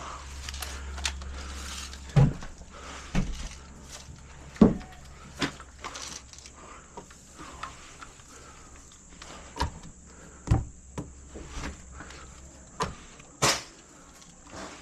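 Irregular sharp knocks and clicks, about eight of them spread unevenly, with a low rumble during the first two seconds.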